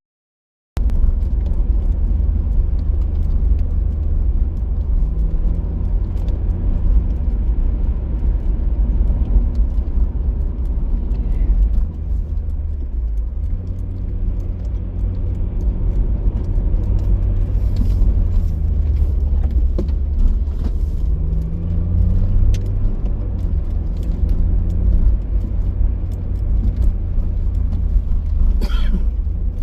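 A car driving: steady low rumble of road and engine, with the engine's pitch rising and falling several times as it speeds up and slows. It starts after a brief silent gap.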